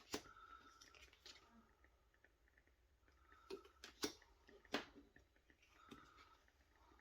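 Tarot cards being handled: several light clicks and taps of card stock, the sharpest a little after the start and twice near the middle.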